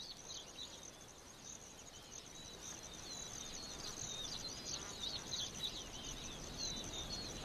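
Savanna ambience: a steady high insect drone with small birds chirping and twittering over it, the chirps more frequent in the second half.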